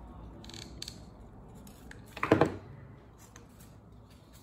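Stiff construction paper rustling and crinkling as red paper strips are handled and pressed together, with a few small clicks and one louder short knock about two seconds in.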